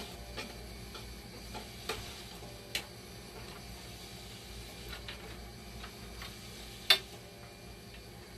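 Scattered sharp clicks and light taps of circuit boards and their plastic and metal parts being handled and pulled inside an opened dialysis machine, the loudest click about seven seconds in, over a steady low hum.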